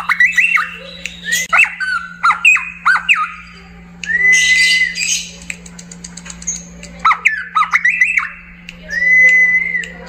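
A caged cucak pantai singing. It gives quick phrases of whistled notes that sweep up and down, then a long level whistle with a harsh rasp over it about four seconds in, and the same pattern again near the end.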